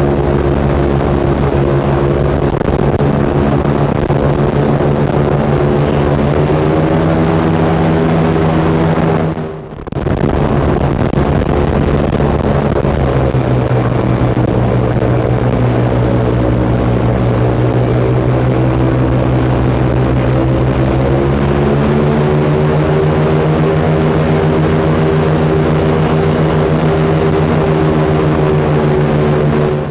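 Airboat's engine and air propeller running at speed, a loud steady drone whose pitch steps up and down as the throttle changes. There is a brief drop in level about ten seconds in.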